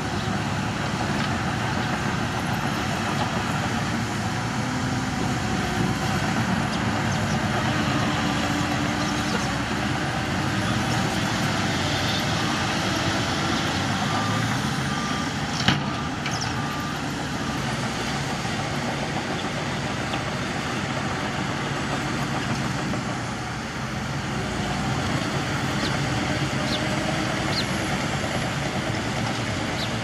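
Diesel dump truck engines running steadily while a truck tips a load of soil, with a single sharp bang about halfway through.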